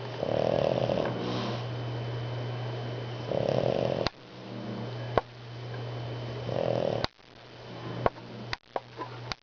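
Snoring in slow, regular breaths: three loud snores about three seconds apart over a steady low hum. Several sharp clicks come in the second half.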